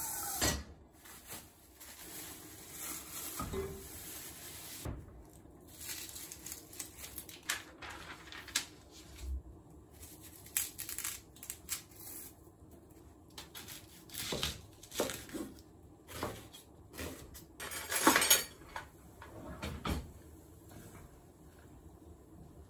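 Kitchen cooking sounds: scattered clinks and knocks of pots, pans and utensils on the hob and counter, with some rustling in between. The loudest clatter comes about 18 seconds in.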